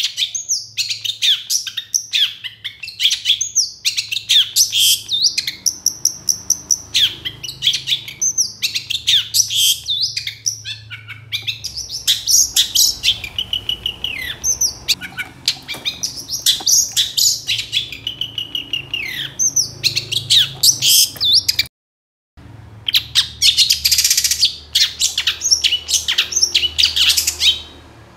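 Long-tailed shrike (cendet) singing a fast, unbroken stream of harsh chattering notes mixed with short whistles and slurred phrases. The song cuts out completely for a split second about 22 seconds in, then carries on.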